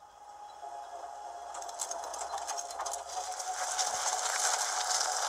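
Opening soundtrack of a clay-animation short: a steady hum with a fast, faint rattle of ticks that grows steadily louder.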